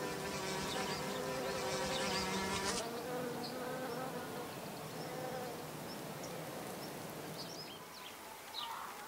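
Bee buzzing: a steady hum that wavers slightly in pitch, loudest for the first three seconds, then quieter and fading out a little past halfway.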